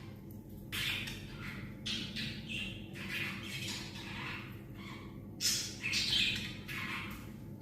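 Pet budgie and cockatiel calling: a run of short, harsh squawks and chirps, coming every second or so.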